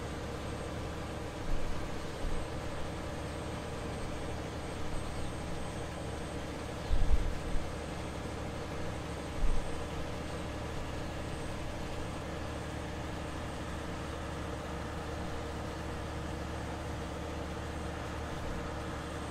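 A steady mechanical background hum, with a few dull low thumps in the first half.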